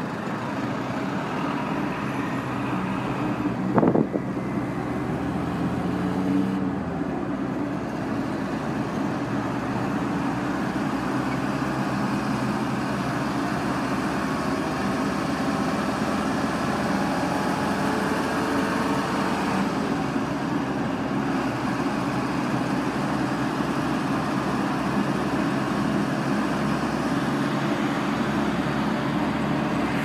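City-centre street traffic: a steady wash of vehicle engines and tyres, with a sharp bang about four seconds in.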